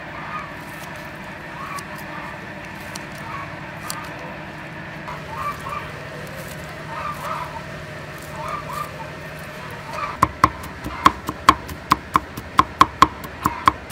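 Short bird calls over a steady outdoor background, then, from about ten seconds in, a cleaver chopping garlic on a wooden cutting board. The chops are quick, sharp and evenly paced, about three a second.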